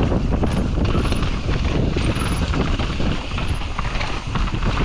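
Mountain bike descending a rough, rocky trail at speed: tyres rumbling over dirt and rock while the bike's chain and parts rattle and knock, over a heavy rush of wind on the microphone.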